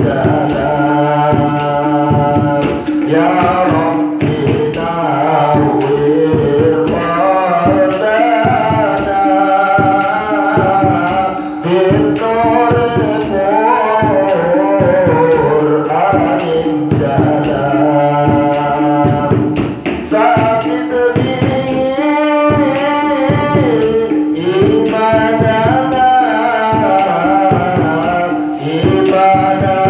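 A man singing sholawat (Javanese Islamic devotional song) through a handheld microphone, in long ornamented, wavering lines over a group's hand-percussion accompaniment with jingling strokes.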